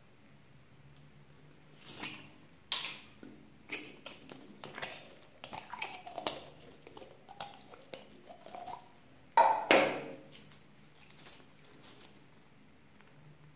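A small plastic slime pot being opened with a few sharp clicks, then pearly slime squeezed out of it with sticky, wet squelches. One louder squelch about two-thirds of the way through has a falling pitch.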